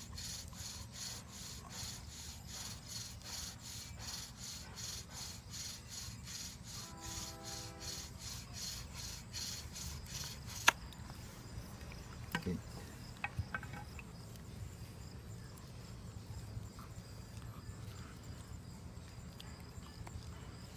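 Bow drill in use: the wooden spindle rubbing in the fireboard with each back-and-forth stroke of the bow, about two strokes a second, on wood that feels damp. There is a brief squeak about seven seconds in. The strokes stop with a sharp click about ten seconds in, and after that there are only a few faint clicks.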